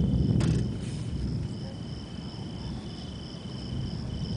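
Crickets trilling: two high, steady trills, the lower one stopping and starting, over a low rumble that is loudest in the first second. A sharp click comes shortly after the start.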